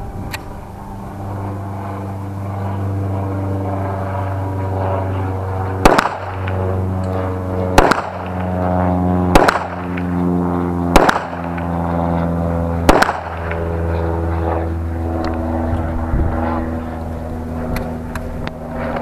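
Five pistol shots, about one and a half to two seconds apart, over a steady engine drone.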